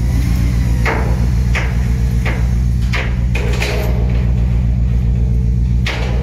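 Sharp hammer strikes on steel at uneven spacing, roughly one a second, over a steady low machinery rumble.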